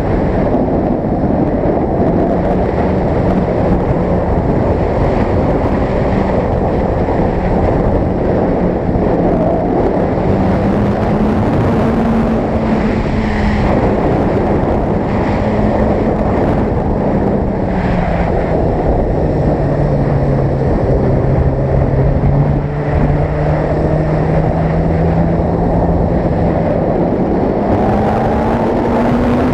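Suzuki GSX-R sportbike engine pulling under way at road speed, its pitch rising and falling with the throttle: it drops lower about two thirds of the way through and climbs again near the end. Heavy wind rush over the microphone runs under it.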